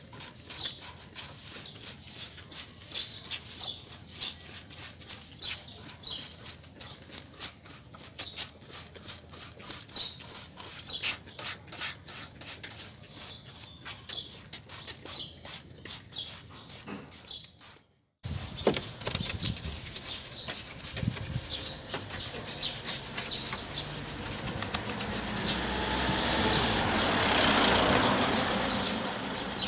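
Paintbrush bristles scrubbing wet plastic and rubber in an engine bay, a fast run of scratchy strokes. About two thirds of the way through the sound cuts out for a moment and the scrubbing starts again, with a hiss that builds near the end.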